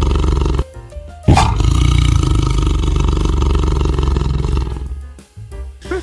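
Tiger roaring: a loud roar breaks off less than a second in, then a second long roar starts suddenly just over a second in and fades away near the end. Background music plays under it.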